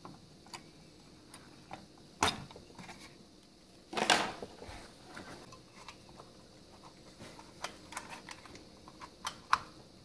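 Scattered light clicks and knocks of an AMD stock CPU cooler being handled and set down onto a motherboard's plastic cooler mounts, the loudest knock about four seconds in, with a run of small ticks near the end.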